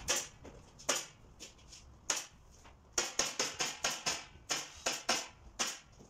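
Handheld pneumatic staple gun firing about a dozen sharp shots, driving fasteners through asphalt shingles into a wooden roof. The shots come at uneven intervals and quicken to a few a second in the second half.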